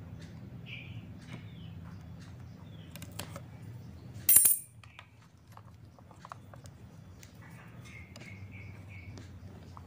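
Faint clicks and scratches of a blade cutting through copper traces on a TV circuit board, then one brief, loud metallic clink about four seconds in.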